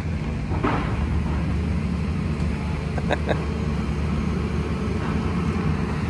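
Steady low engine rumble, with a few short knocks about half a second in and around three seconds in.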